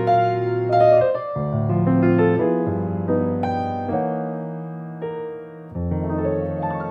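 Background piano music: chords over a low bass with a melody on top, each new note or chord struck and left to ring out.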